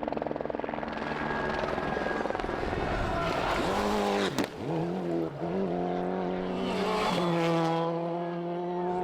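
Rally car engine at full throttle. About four seconds in, the revs drop sharply twice as the driver lifts and changes gear, then the engine pulls back up and holds high revs.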